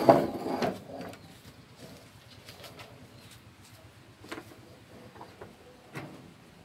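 Dove cooing in the background, low and soft. Kittens scuffle and paw at crumpled newspaper on wooden boards, with a loud rustling bump in the first second and lighter taps and rustles later.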